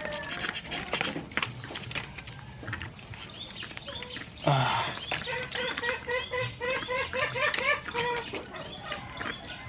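Chicken-type fowl calling: a loud harsh squawk about halfway through, then a quick run of short clucking notes, about five a second, lasting some three seconds. Scattered clicks and rustles run underneath.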